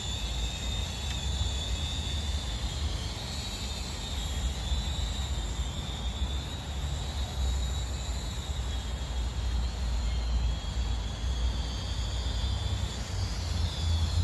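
Faint high whine of a Holy Stone HS120D quadcopter's motors and propellers, wavering slightly in pitch, over a steady low rumble.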